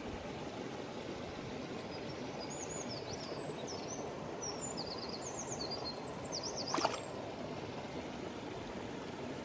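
Mountain stream flowing steadily over rocks, with a small bird singing a series of high chirps from about two seconds in until about seven seconds. A single sharp click near seven seconds is the loudest sound.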